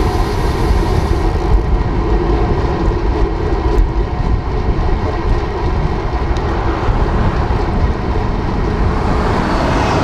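Steady wind rush on the microphone of a camera on a road bike ridden at speed, with road and traffic noise underneath.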